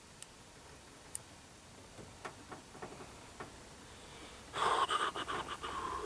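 Handling noise from a bolt-action rifle and its scope: a few light, scattered clicks, then a louder stretch of rapid clicking and rustling starting about four and a half seconds in. No shot is fired.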